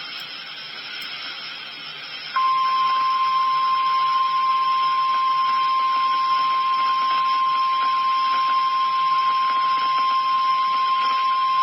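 NOAA Weather Radio warning alarm tone (1050 Hz): a single steady, piercing tone over radio hiss. It starts about two seconds in and holds unbroken, signalling that a National Weather Service warning message follows.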